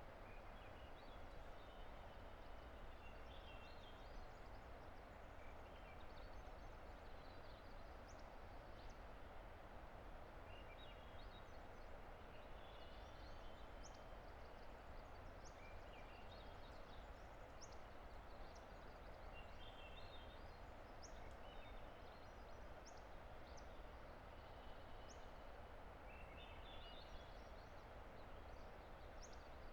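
A distant river's steady rushing, with small birds singing short, high, chirping phrases every few seconds over it.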